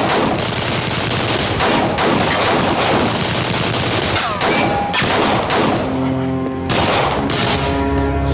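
Dense gunfire from several handguns, shots overlapping almost without a break. Dramatic music comes in about six seconds in, under the continuing shots.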